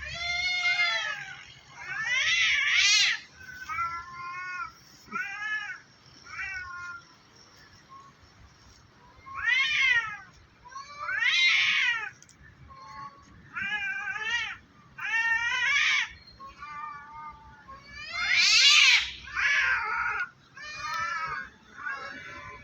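Two cats caterwauling at each other in a standoff: drawn-out, wavering yowls traded one after another with short gaps between them, a threat display before a fight. The loudest yowl comes near the end.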